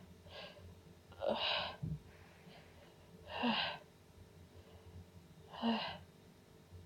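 A woman sneezing over and over: three short sneezes about two seconds apart, each with a brief voiced onset, and a fainter one just before the first.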